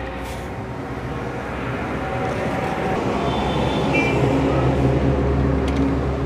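A motor vehicle's engine running: a steady low drone that grows louder over the first few seconds and then holds.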